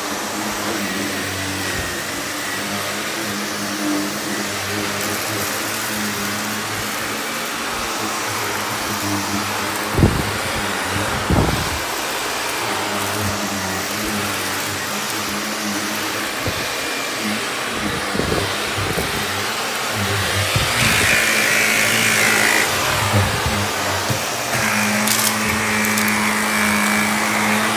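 Upright vacuum cleaner running steadily while pushed back and forth over a rug, with a couple of sharp knocks near the middle. In the last third its sound gets louder and brighter with a higher hiss as the nozzle moves onto bare hardwood floor.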